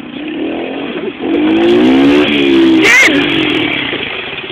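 110cc semi-automatic dirt bike engine revving up close, its pitch rising and falling as the throttle is worked. A brief sharp noise cuts through about three seconds in.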